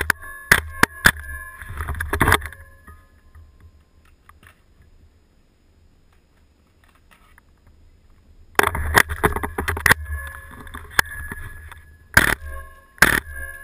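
WE PDW gas blowback airsoft rifle firing: a quick string of sharp shots with the bolt cycling, a pause of several seconds, another quick string, then two single shots near the end.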